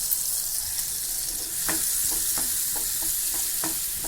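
Coriander seeds and cumin roasting in a pan with a steady sizzle, and from about a second and a half in, a spatula stirring them in short scraping strokes, roughly two a second.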